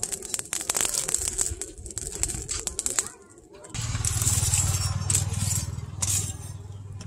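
Lumps of charcoal clinking and crunching as a steel chainsaw-bar blank is pushed down into a charcoal forge fire. From about four seconds in, a steady low hum with a hiss sets in, likely the forge's air blower blowing the fire.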